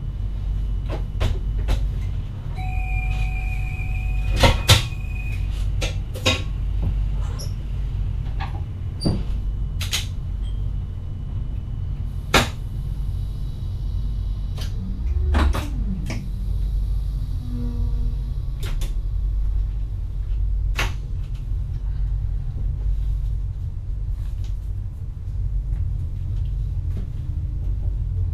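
Inside the cab of an NS VIRM double-deck electric train: a steady low hum, with irregular sharp clicks and knocks of cab switches and fittings and a brief high tone about three seconds in.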